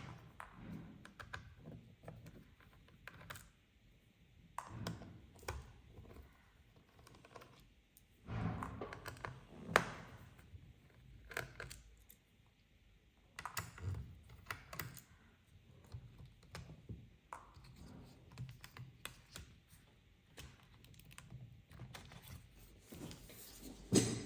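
Scattered light clicks, taps and short scrapes of hands and small tools working on the plastic and metal case of an HP ProBook 450 G8 laptop during disassembly, with busier patches about eight and thirteen seconds in.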